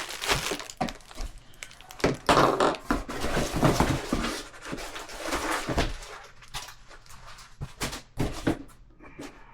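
Cardboard box and packaging being handled: irregular rustling and scraping with scattered knocks and thunks as parts are pulled out and set down, busiest in the middle and thinning out near the end.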